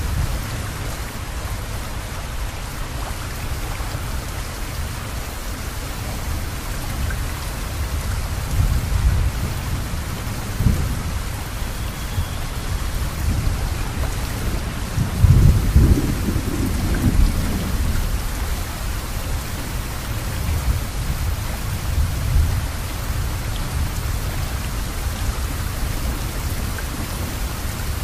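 Steady rain hiss with low rolls of thunder, the loudest rumble about halfway through.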